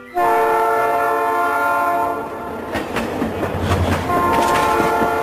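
Train horn blowing a long held blast, then the clatter of the train rolling over the rails, then the horn sounding again near the end.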